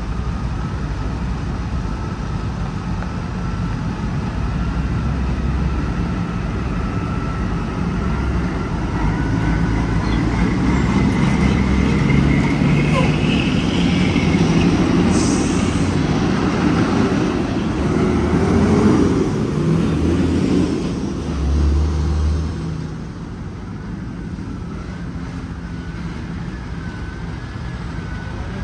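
Heavy truck's diesel engine running with a low rumble, growing louder for a stretch and dropping back about twenty-three seconds in, with a faint wavering whine above it.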